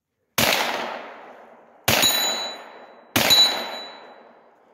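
Three single shots from a CZ Scorpion carbine, about one and a half seconds apart, each trailing a long echo. A brief high metallic ring follows the second and third shots.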